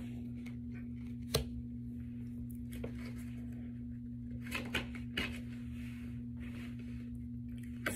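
Tarot cards being handled and laid down: a few light taps and clicks and a short swish of card against card, spaced a second or more apart, over a steady low hum.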